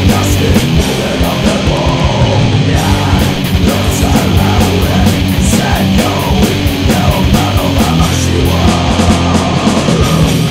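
Loud rock band demo recording with heavily distorted electric guitar, bass and drums, cymbals struck in a steady beat.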